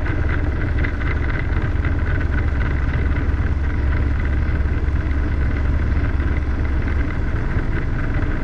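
Robinson R22 helicopter's piston engine and rotors heard from inside the cockpit: a steady, loud drone with a deep low rumble.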